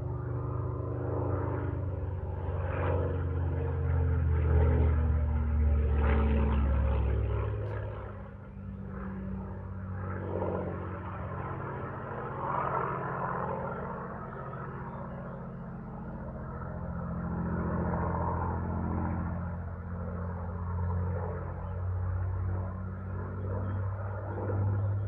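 Supermarine Spitfire's piston aero engine droning as the aircraft flies past, its pitch dropping over the first few seconds. Loudest about five seconds in, then fading, with weaker swells later as the sound comes and goes.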